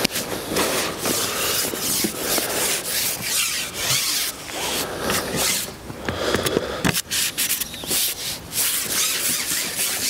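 Continuous rough rubbing and scraping noise, broken by irregular sharp knocks.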